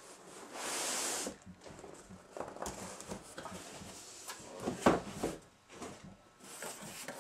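Cardboard boxes being handled on a table: a brief scraping slide near the start, then scattered light taps and rustles and one sharper knock about five seconds in.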